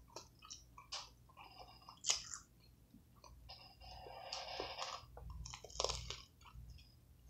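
A person biting into and chewing a big burger close to the microphone: irregular mouth clicks and chewing noises, with the sharpest bites about two seconds in and near six seconds.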